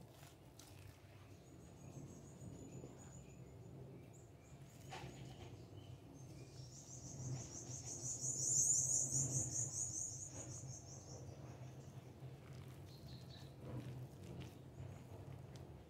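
Faint soft ticks of a hand working mashed banana dough and cassava flour in a bowl, over a low steady hum. A high-pitched trill of rapid chirps comes in about seven seconds in and fades out about four seconds later.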